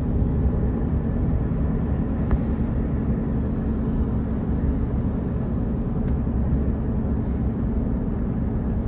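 Steady low rumble of a moving vehicle: road and engine noise, with a faint click twice.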